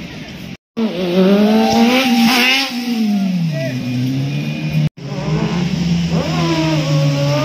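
Sport motorcycle engines revving hard as bikes ride down the road, the pitch climbing and falling with the throttle. The sound cuts out briefly twice.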